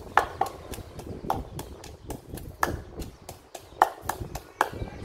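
Wooden pestle pounding in a deep wooden mortar: a steady run of wood-on-wood knocks, about four a second with a few louder strokes, stopping shortly before the end. Ingredients for papaya salad are being pounded.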